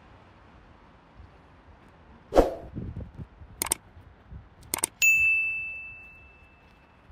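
Subscribe-button sound effect: a short sharp sound, two mouse clicks, then a bright bell ding that rings out and fades over about two seconds.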